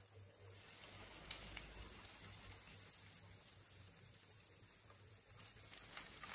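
Faint sizzling and crackle of hot tadka oil with mustard seeds and curry leaves just poured over a pan of dal-and-broad-bean usli, with a few light ticks as a wooden spatula stirs it in.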